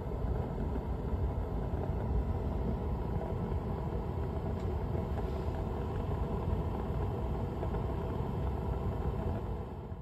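Ryobi P3180 hybrid forced-air propane heater running: its lit burner and blower give a steady rumble.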